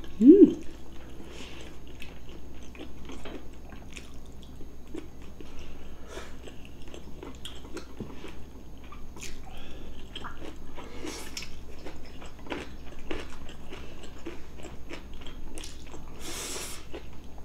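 Close-up eating sounds of two people chewing and biting braised pork ribs and rice, with small clicks of chopsticks against bowls and dishes. A short rising hum of a voice comes right at the start.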